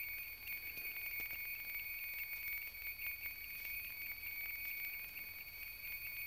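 Space heater running in the background: a steady hum with a constant high whine.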